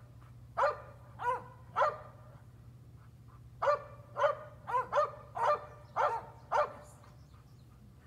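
A dog barking: three sharp barks, a pause of about two seconds, then six more in quick succession. A steady low hum runs underneath.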